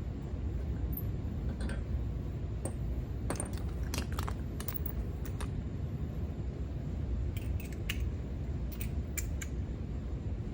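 Scattered small metallic clicks and clinks of lug nuts and hand tools being handled while a wheel is mounted on a car's hub, in a few quick clusters, over a steady low rumble.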